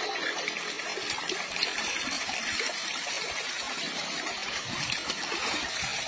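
Water trickling and flowing steadily.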